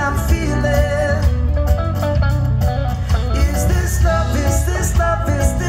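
Live band playing: singing over guitars and drums, with a steady beat.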